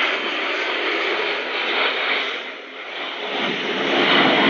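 Formation of seven Aero L-39 Albatros jet trainers flying overhead, their single turbofan engines making a steady rushing jet noise. The noise dips a little past the middle and swells again near the end.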